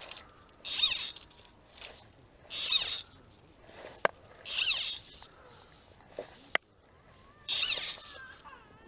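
Four short, zipping hisses about two seconds apart, from fishing line being stripped or pulled in. A couple of sharp clicks fall between them.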